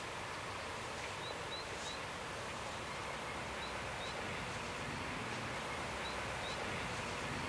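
Outdoor country ambience: a steady hiss of air with a small bird giving short, high rising chirps in twos and threes, three times over.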